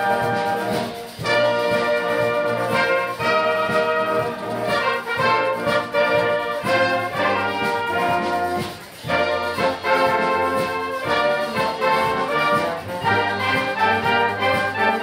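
Brass band (Blasmusik) playing a tune with trumpets and trombones in full chords. There are short breaks between phrases about a second in and again near the middle.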